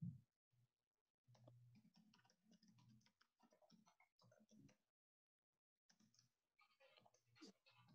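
Near silence with faint, irregular clicks of computer keyboard typing coming through a video call's audio.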